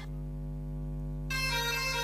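Pianika (melodica) playing the telolet bus-horn melody: a held reedy note for just over a second, then the melody picks up again about a second and a half in, over a steady low drone.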